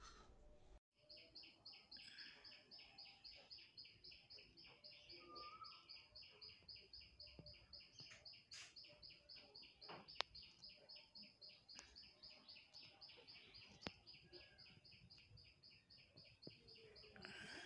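Faint, steady, rapid chirping, about five chirps a second, starting about a second in. Two sharp clicks stand out midway.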